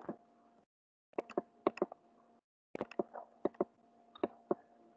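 Computer mouse clicking: a dozen or so sharp clicks in two quick clusters, a short pause between them, as text is selected and highlighted in a word processor.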